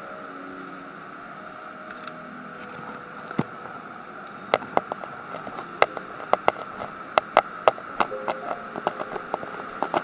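Footsteps on a hard tiled floor, sharp clicking steps about two a second starting about four and a half seconds in, over a steady background hum.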